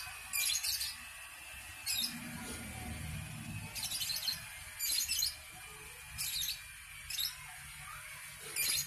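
Scissors snipping through coconut palm fronds: about seven short, crisp cuts at irregular intervals, with a faint low hum a couple of seconds in.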